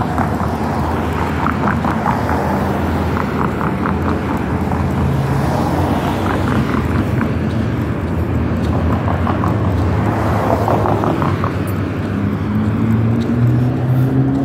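Road vehicle driving at speed: a steady rumble of engine and tyre noise. The engine note climbs in pitch over the last few seconds as it accelerates.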